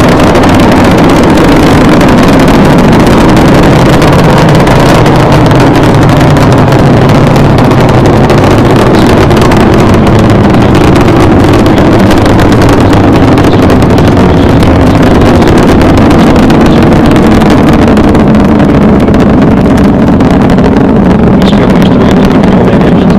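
Space Shuttle Discovery's solid rocket boosters and main engines firing during ascent: a very loud, steady rocket rumble, the highs thinning a little near the end.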